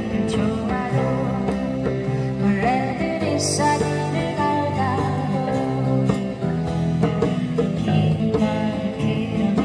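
Acoustic band playing a song live, with guitar and sustained melody notes over a steady chordal accompaniment.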